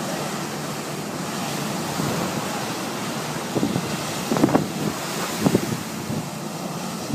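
Steady rushing noise of wind on the microphone over the running jet engines of a twin-jet airliner taxiing on the runway, with a few short louder bursts a little past halfway.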